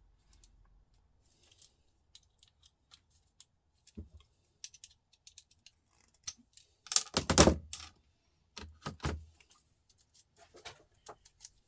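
Scattered light clicks and taps of small metal and plastic laptop parts being handled and taken apart, with a louder burst of clatter about seven seconds in and a shorter one near nine seconds.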